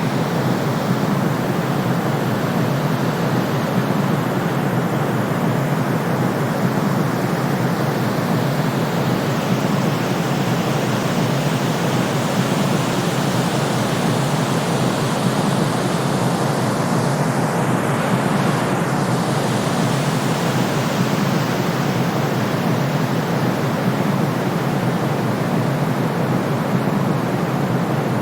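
Steady white-noise track of the kind played to soothe a baby to sleep: an even, unbroken hiss weighted toward the low and middle range, with no tone or rhythm.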